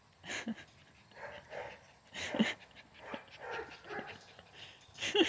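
Puppies giving several short yips and barks while play-biting a hand.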